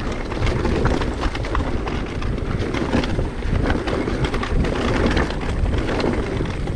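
Wind buffeting a mountain bike's on-board camera microphone, with a steady rumble and many small clicks and knocks from the bike rolling over rough ground.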